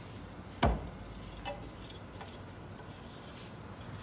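Hand auger boring into a timber beam: the spiral bit cutting the wood gives faint crackling and a couple of small clicks, with one sharp knock about half a second in.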